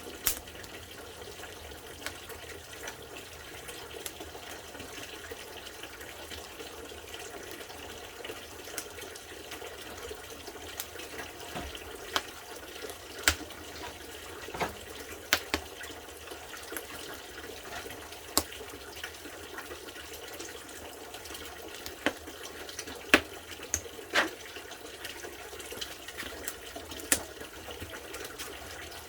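Steady running water with scattered sharp clicks and knocks.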